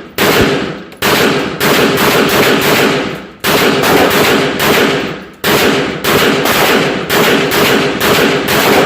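Kel-Tec PMR-30 .22 Magnum pistol fired rapidly, a string of about eighteen shots at two to three a second with two short breaks, each shot trailing off in a brief echo.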